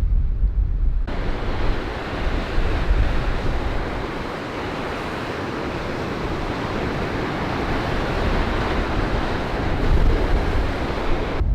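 Large waves breaking and surf washing onto the Lake Erie shore in a gale, with gusty wind buffeting the microphone. About a second in, the low wind rumble gives way suddenly to a loud, dense hiss of surf, which swells and eases.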